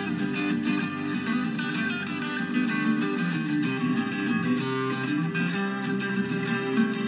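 Background music with a quick, steady rhythm.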